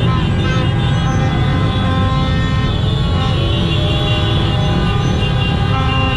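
Many horns honking and tooting at once, overlapping held tones, over a steady rumble of road traffic.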